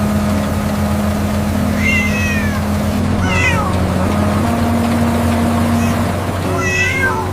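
Three short, high, falling cat meows, like a kitten's, over a steady low drone and held background tones.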